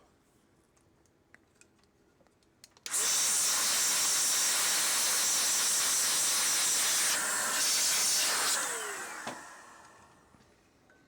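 A jet of blown air hissing loudly. It starts suddenly about three seconds in, holds steady for about five seconds, then tails off with a falling whine as the blower winds down.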